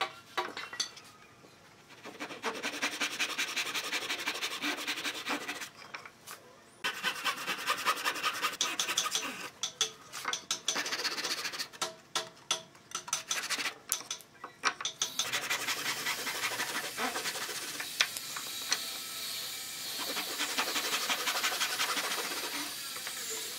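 Fine-toothed hand saw cutting through thin wooden strips in fast, rasping back-and-forth strokes, with a few short pauses between cuts.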